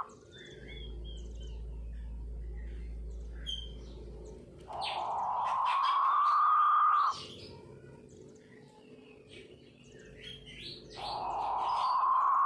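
King quail (puyuh batu) giving its harsh, snoring 'ngorok' call: a long rasping note of about two and a half seconds that rises slightly. The call comes about midway and again near the end, with short high chirps from small birds in between.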